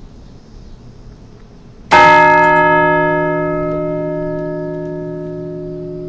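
A large church bell in the newly blessed bell tower, struck once about two seconds in and left to ring on, its many tones fading slowly.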